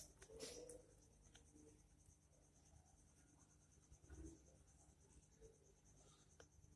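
Near silence: faint room tone with a few soft scratchy noises, around half a second in and again about four seconds in.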